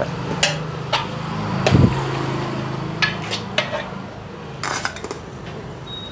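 Steel serving spoon clinking and scraping against a steel plate and a large aluminium pot as biryani rice is scooped and served, in a series of sharp clinks, with a dull thump a little under two seconds in.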